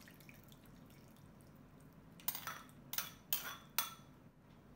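Four quick, light clinks of a metal ladle against a cut-glass bowl, about half a second apart, starting a little over two seconds in, as the last of the soup is emptied over a bowl of chicken feet.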